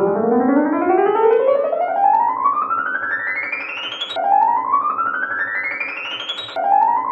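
Electronic keyboard music: quickly rising runs of notes that climb steadily in pitch. There are three runs, a long one of about four seconds, then shorter ones starting about four and six and a half seconds in, each dropping back low before rising again.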